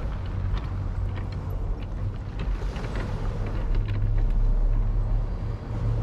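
Sea waves washing on the shore, swelling about halfway through, over a steady low rumble, with scattered small clicks.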